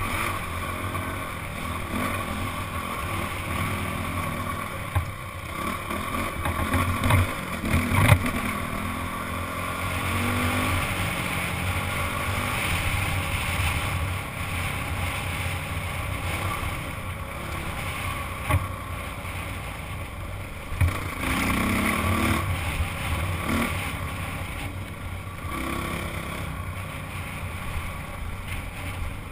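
Single-cylinder four-stroke Honda CRF dirt bike engine running under changing throttle, rising and falling in pitch as the bike is ridden. A few sharp knocks come through, about 5, 8 and 18 seconds in.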